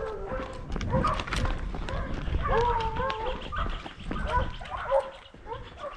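Boar-hunting dogs baying: repeated drawn-out calls that waver in pitch, the longest about two and a half seconds in, with short clicks and crunches mixed in.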